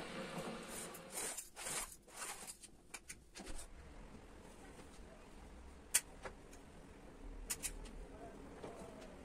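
Light handling noises: a steady hum that dies away in the first second, then a couple of seconds of rustling and brushing, and later a sharp click with a few lighter taps.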